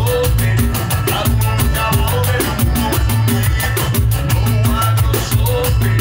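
Pandeiro played along to a recorded band song, its jingles sounding in a quick, even rhythm of about six strokes a second over the band's music.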